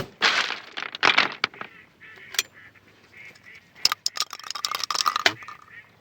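Ducks quacking in short repeated calls, with a quicker, denser run of calls about four to five seconds in.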